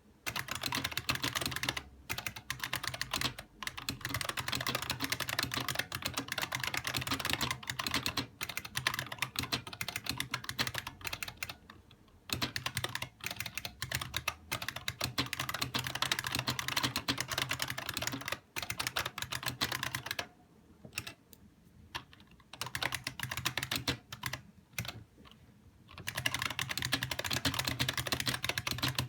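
IBM Model M Space Saving Keyboard's buckling-spring keys being typed on in fast, continuous runs of clicks. The runs pause briefly twice, once for several seconds with only a few scattered keystrokes, then resume.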